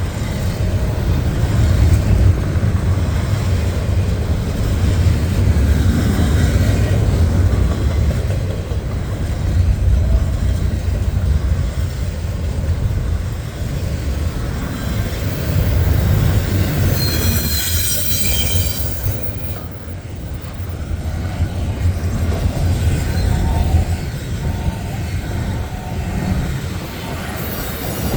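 Intermodal freight train cars rolling past with a steady heavy rumble. A brief high-pitched wheel squeal rises over it about two-thirds of the way through.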